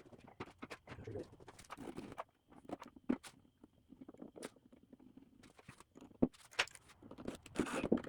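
Irregular light clicks, taps and knocks of hands handling drawer pulls, screws and drawer fronts, growing into a denser clatter near the end.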